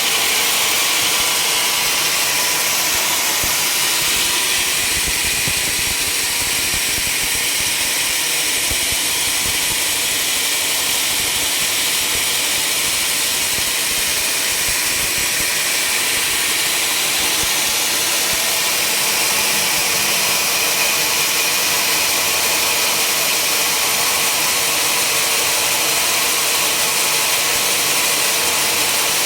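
Sawmill machinery running: a steady, unbroken mechanical noise, strongest in the high range, with no change in level.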